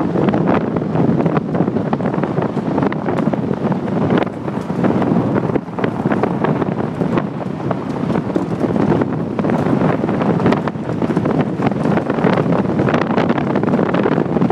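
Wind buffeting the microphone of a moving car, over the tyres rolling on a dirt and gravel road, with many small sharp crackles.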